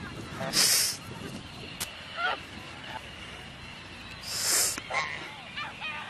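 Domestic geese honking in short calls, once about two seconds in and several times near the end, with two loud half-second hisses.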